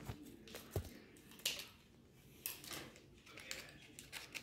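Faint scattered crinkles and clicks of a plastic instant-noodle packet being handled in the hands, about half a dozen short sharp sounds spread through.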